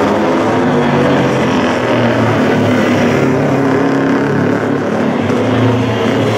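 Several classic racing motorcycle engines running hard at once, their overlapping notes wavering up and down in pitch as the bikes rev and shift.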